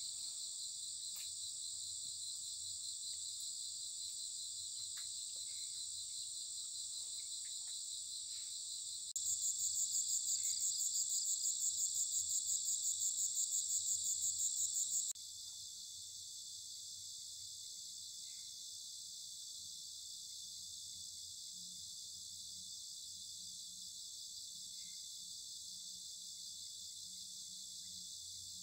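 Insects chirring steadily in a dense, high-pitched chorus. From about nine seconds in, a louder, pulsing insect call takes over, then cuts off abruptly about six seconds later, leaving the steady chirring at a lower level.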